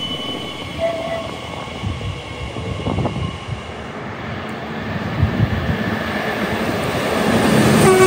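Train noise at a station platform: an Elizabeth line Class 345 electric train moving out, then a Great Western Railway Class 800 approaching with its running noise growing steadily louder. Its horn begins to sound right at the end.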